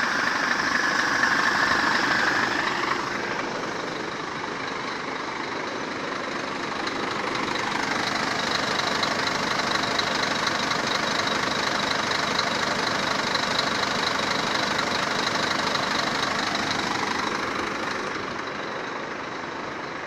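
Scania tractor unit's diesel engine running with a dense, knocking engine noise. It gets louder about a third of the way through and eases off again near the end.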